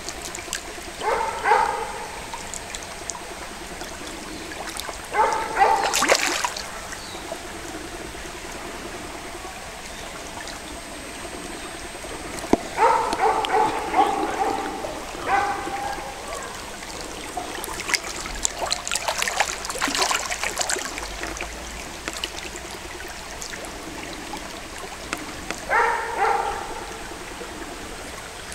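Shallow stream water flowing steadily, with several short pitched sounds and a few clicks heard over it.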